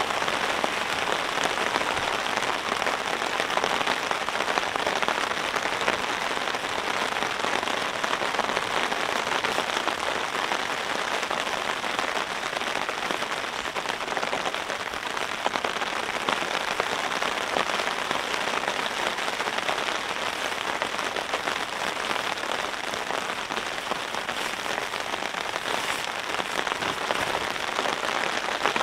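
Steady rain, a dense spatter of drops falling on a camping tarp without letting up.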